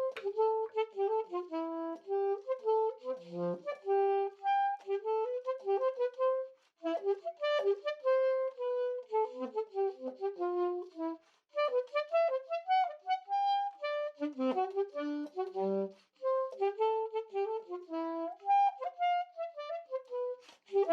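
Background music: a woodwind instrument playing a flowing melody of held and sliding notes in phrases, with brief pauses between them.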